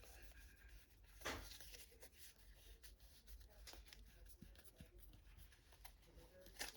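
Near silence with faint handling sounds of trading cards: a short soft brush about a second in, scattered light ticks, and a sharp tap near the end.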